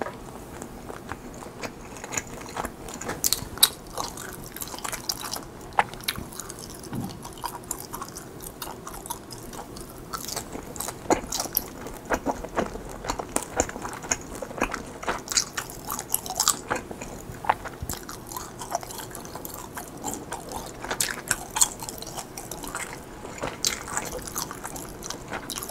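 Close-miked chewing of mozzarella-filled rice cakes (cheese tteok): many short, irregular mouth clicks.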